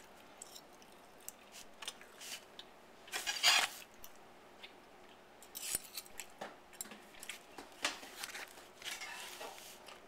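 Kitchen utensils clicking and scraping against dishes, in scattered short knocks with a few brief scrapes, the loudest about three and a half seconds in.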